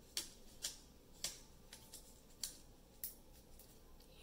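Scissors cutting paper: a series of about seven short, crisp snips, roughly one every half second to a second.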